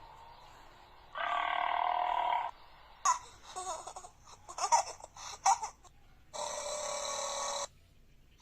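A person burping: two long burps, each over a second, one about a second in and one near the end, with a few short vocal sounds between them.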